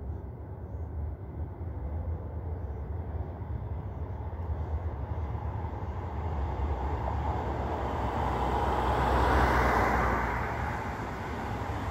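Road traffic: a car passing close by, its tyre and engine noise swelling to a peak about ten seconds in and then fading, over a steady low rumble of traffic.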